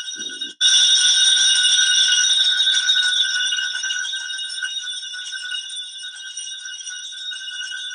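Bells ringing continuously for the benediction with the monstrance, marking the blessing with the Blessed Sacrament. The ringing cuts out briefly about half a second in, then comes back louder and eases off slightly.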